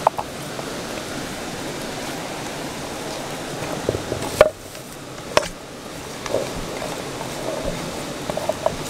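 River water rushing steadily, with a few sharp knocks or clicks about four and a half and five and a half seconds in.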